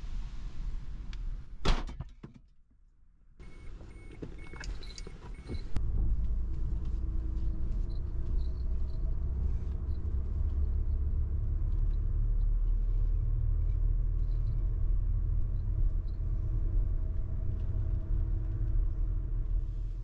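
Rear hatch of a Suzuki Lapin kei car slammed shut with one sharp bang, then a few short chimes. About six seconds in the small engine starts and idles steadily, heard from inside the cabin.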